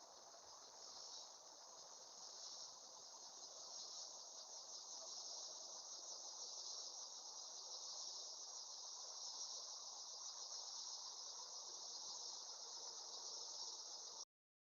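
Steady, continuous chorus of insects trilling high, with no break; it cuts off suddenly near the end.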